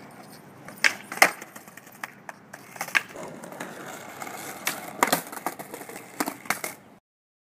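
Skateboards on asphalt: several sharp clacks of tails popping and boards slapping down during flip-trick attempts, with wheels rolling in between. The loudest clack comes a little over a second in, and the sound cuts off abruptly about a second before the end.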